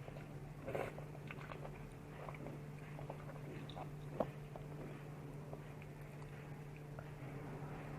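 A person chewing and eating tteokbokki and ramen: soft mouth sounds and small clicks, a brief louder noisy sound about a second in, and a sharp click about four seconds in, over a low steady hum.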